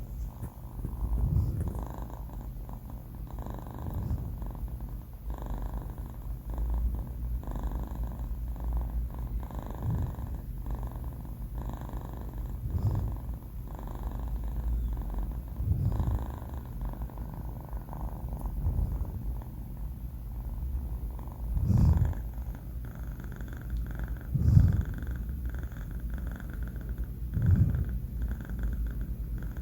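Sleeping four-month-old kitten snoring, a low continuous rumble that swells with each breath about every three seconds.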